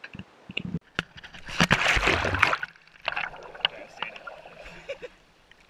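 A few knocks, then a loud splash about a second and a half in as a person jumps off the boat into the sea, followed by water sloshing close by as he swims.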